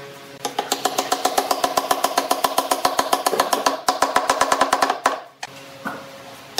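Background music with a fast, even wood-block-like percussive beat, about seven strokes a second, over held tones. The beat breaks off about five seconds in, leaving a quieter held note.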